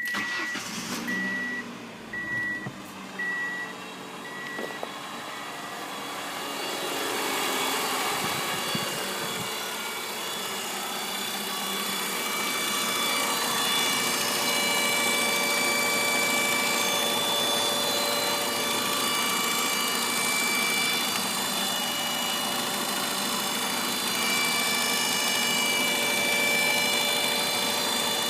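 1997 Ford Escort four-cylinder engine running warm with a loud, steady high whine from the back of the engine. The whine grows louder about seven seconds in and then holds steady. The cause is unknown: the owner says the whine only appears once the engine is warm and that pulling the EGR valve's vacuum line does not change it. A series of short beeps sounds during the first few seconds.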